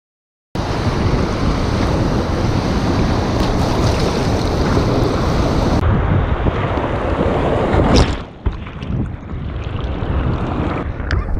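Broken surf roaring over the deck of a surf kayak, loud churning water with wind buffeting the microphone, starting abruptly about half a second in. About eight seconds in comes one sharp slap of water, after which the roar drops to quieter sloshing and splashing as the kayak is paddled through the whitewater.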